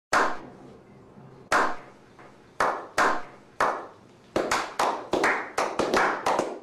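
A small group giving a slow clap: single hand claps about a second apart that speed up into quicker, closer claps over the last two seconds.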